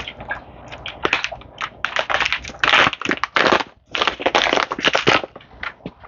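A package of Bug Bites fish food pellets being handled and shaken, giving irregular rustling, crinkling and rattling that is busiest in the middle.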